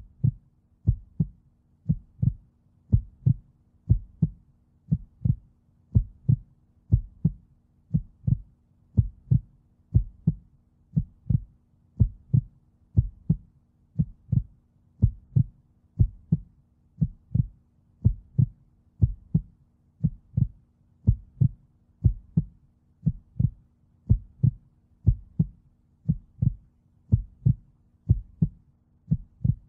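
Heartbeat sound effect: a steady, even pulse of low beats, about two a second, over a faint low hum.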